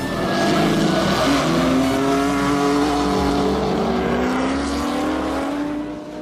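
A car engine revving hard at a drift event, its pitch climbing slowly for several seconds as the car passes, then fading near the end.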